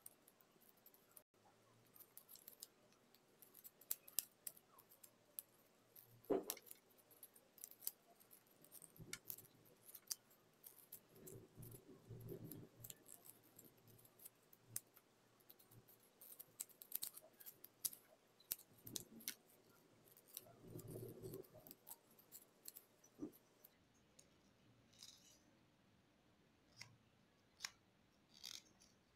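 Faint crackle and rustle of origami paper being folded and creased by hand: many small sharp ticks, with a couple of longer soft rustles.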